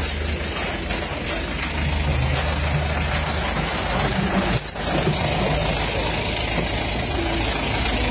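Diesel engines of a hydraulic excavator and a Foton Tornado dump truck running, a steady low drone.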